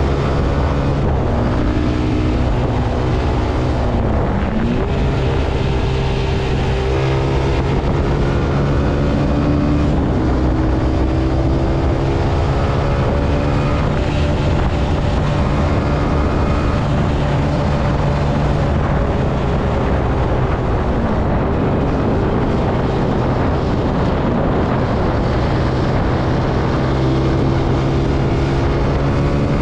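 Zontes C125 125 cc motorcycle engine running under way, its pitch rising and falling gently with the throttle, with short dips about four seconds in and again about twenty-one seconds in. Wind and road noise run underneath.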